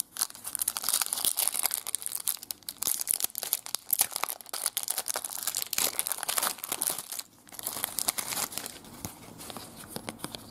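Foil wrapper of a trading-card pack crinkling and tearing as it is opened by hand: a dense, fine crackle with a brief pause about seven seconds in, softer after that.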